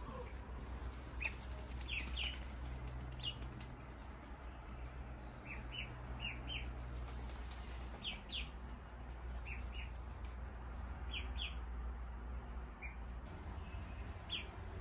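Ducklings peeping: short, high-pitched peeps, often two in quick succession, every second or two, over a low steady hum.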